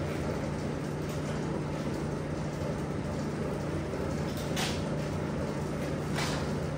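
Steady low machine hum, with two short rushing noises about four and a half and six seconds in.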